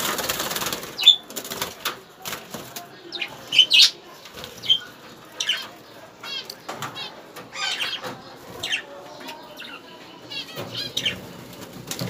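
Caged pet birds flutter their wings in a rustling burst in the first second, then give short high chirps and quick trilled calls on and off.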